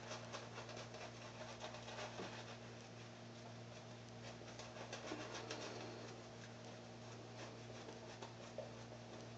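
Faint, quick bristly scratching of a Simpson shaving brush working lather over stubbled cheek, chin and neck. A steady low hum runs underneath.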